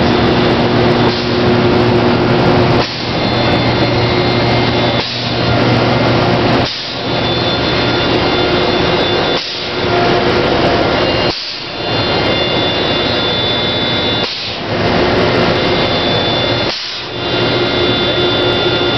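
Belt-driven piston air compressor and a Tornado 60.70 pneumatic airless paint pump running together: a loud, steady hiss with a low hum. The noise drops briefly about every two to three seconds.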